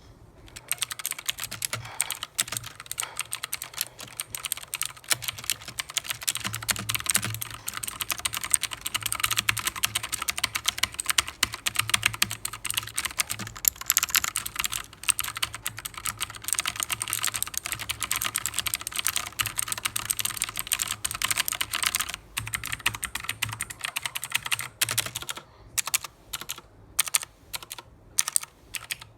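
Fast typing on a mechanical keyboard, a dense stream of key clicks that thins out about three quarters of the way through into slower, separate keystrokes.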